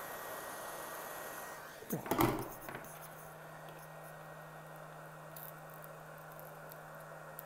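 A steady hiss cuts off about two seconds in, followed by a short clatter of hard objects, the loudest moment. A faint steady low hum follows, with a few small clicks.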